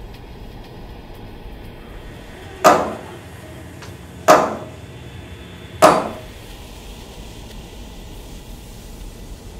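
Three loud hammer blows on wood, about a second and a half apart, each ringing out briefly: the staged nailing to a wooden cross.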